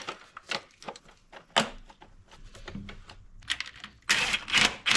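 Clicks and knocks of hoses, connectors and engine parts being handled and fitted, with a louder noisy rustle lasting about half a second near the end.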